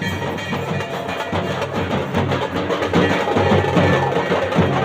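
Dhol drums beaten in a fast, dense rhythm, with a shehnai's steady reedy tones over them.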